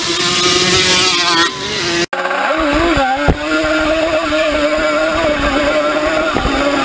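Yamaha Banshee two-stroke twin ATV engines running at full throttle in a grass drag race. About two seconds in the sound cuts abruptly to a camera on the quad itself, where one engine holds a high, steady pitch after a brief wobble and dip.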